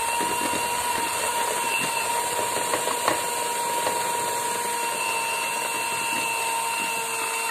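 Electric hand mixer running at a steady speed, its beaters creaming butter and sugar in a plastic bowl, with an even motor whine. A small click sounds about three seconds in.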